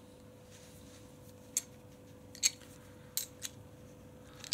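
A spanner clicking against a nylock nut as it is tightened down on a Gold Valve cartridge emulator's spring-preload adjuster: four short, sharp metallic clicks, the loudest about halfway through.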